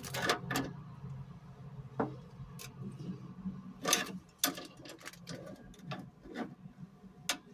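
Irregular clicks, taps and knocks of spanners and pipe fittings being picked up and handled, over a low steady hum that fades early on.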